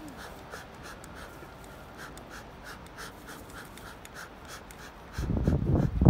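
Bee smoker's bellows being pumped in quick, even puffs, about three a second, to get the paper and bark fuel burning. About five seconds in a loud low rumbling noise starts and covers it.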